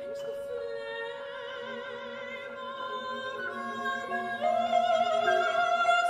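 Soprano voice singing long held notes with vibrato over a contemporary chamber ensemble of strings and keyboards. The sound swells louder about four and a half seconds in, with a strong new held note entering.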